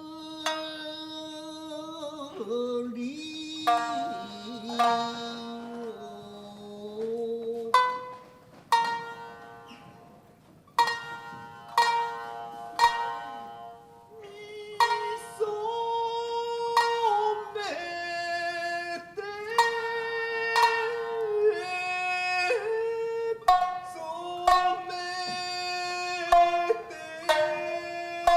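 Tokiwazu jōruri: a chanter's long, held, wavering vocal lines over shamisen, with sharp plucked shamisen strokes between and under the phrases.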